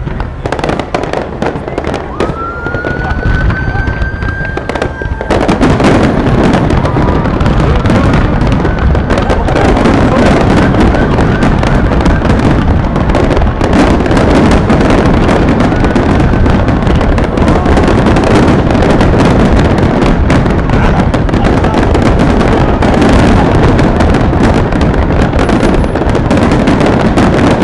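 Fireworks: a whistling shell rises in pitch about two seconds in and holds its note, then from about five seconds a loud, dense barrage of bangs and crackling goes on without a break.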